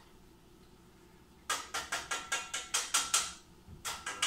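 Spoon stirring and scraping scrambled eggs in a stainless steel saucepan: a fast run of scrapes and knocks against the pot, about eight a second, with the metal ringing faintly. It starts about a second and a half in, pauses briefly, then a few more scrapes come near the end.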